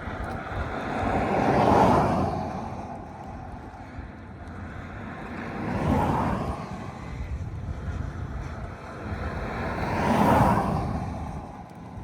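Three vehicles passing on a paved highway. Each is a rush of tyre and engine noise that swells and fades over a couple of seconds, about four seconds apart.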